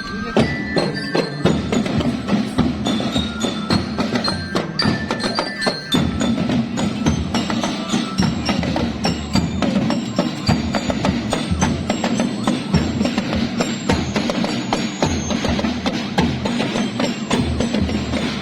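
School marching band playing: dense snare and bass drumming with a high bell-lyre melody. The melody stands out in the first few seconds, then the drumming carries the sound.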